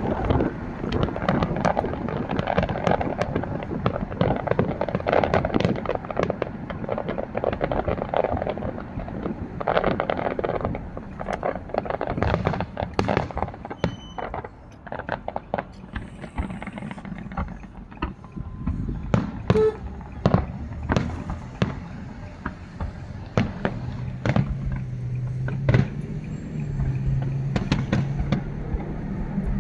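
A fireworks display: shells bursting with a dense run of bangs and crackling over a rumble, thinning out after about twelve seconds into separate sharp bangs.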